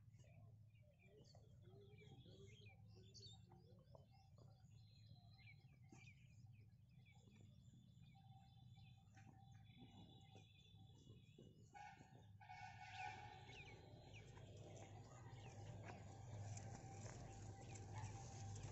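Faint open-field ambience with small birds chirping and calling in short, scattered notes. About two-thirds of the way in, the background shifts to a steadier, fuller hiss under the chirps.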